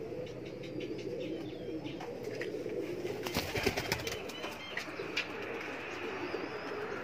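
Domestic pigeons cooing in a low, wavering drone. A burst of sharp clicks and knocks comes about three and a half seconds in.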